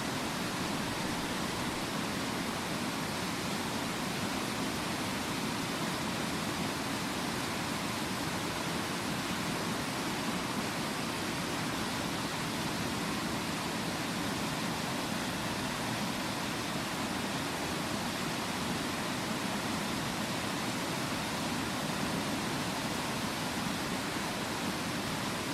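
Waterfall: water falling and splashing, a steady even rush with no breaks.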